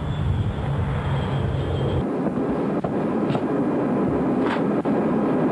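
Steady low rumble of background noise with a faint high tone, which breaks off abruptly about two seconds in. It gives way to an even, steady hiss with a few faint clicks.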